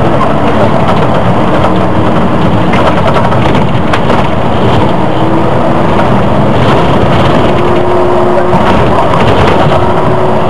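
Volvo Olympian double-decker bus heard from inside on the upper deck: its engine runs loudly and steadily under way. A faint whining tone climbs in pitch in steps as the bus picks up speed.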